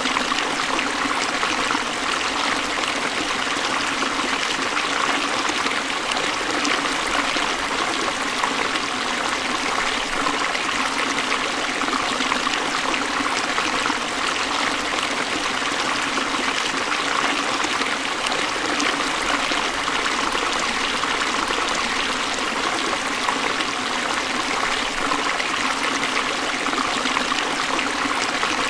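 Forest stream flowing and splashing over rocks, a steady, even rush of running water.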